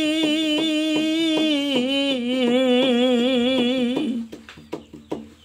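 A man's voice singing a long held note with vibrato in a Bengali folk song, over a steady beat of sharp taps about four a second. The voice stops about four seconds in, leaving the taps.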